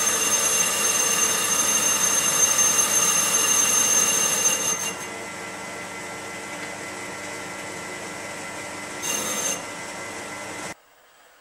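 Metal lathe running with a steel gear blank spinning on an arbor, giving a loud steady high-pitched whine. About five seconds in the sound drops to a quieter steady running. The whine comes back briefly near the end, then the sound cuts off.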